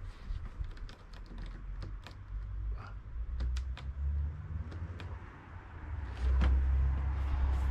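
Chrome window trim strip being pulled off a BMW 3-series door by hand, its clips and strip giving a quick, irregular series of clicks and creaks. A louder low rumble comes in near the end.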